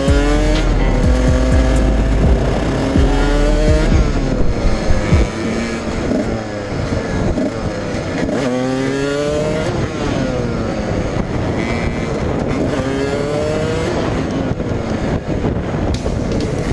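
Dirt bike engine revving up and shifting gears while riding, its pitch climbing and dropping back several times, over heavy wind and road noise.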